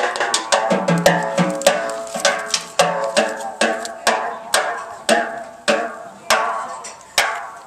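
Live small-band music led by a drum kit: sharp accented hits about twice a second, each ringing out and fading, with pitched instrument notes sounding under the first few seconds.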